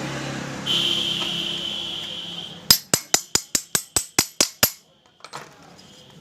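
A quick run of about eleven light metallic taps, about five a second, as the rocker arm pin is driven into a motorcycle cylinder head.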